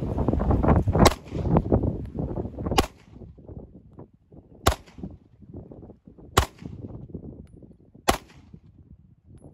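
Five pistol shots fired one at a time at a steady pace, about one every second and a half to two seconds, each a sharp crack. Wind buffets the microphone with a low rumble through the first three seconds.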